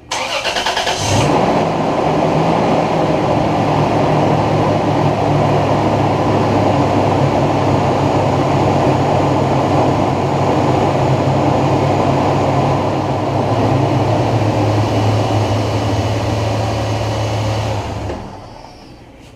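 2002 Toyota Tundra's 3.4-litre V6 cranked by the starter for about a second, catching and settling into a steady idle, then shut off about a second before the end. It is the short run after an oil change that fills the new oil filter.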